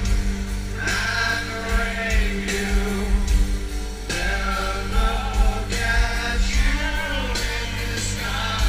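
Live rock music from a stadium concert: the band playing a slow song with voices singing over it, picked up from among the crowd on the stadium floor.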